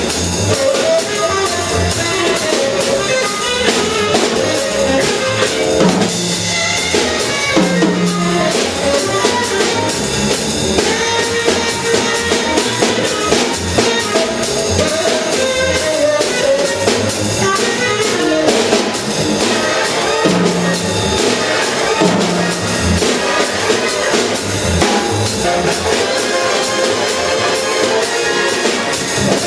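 Up-tempo big-band swing with a drum kit prominent: snare, rimshots and bass drum driving under the band's moving melodic lines.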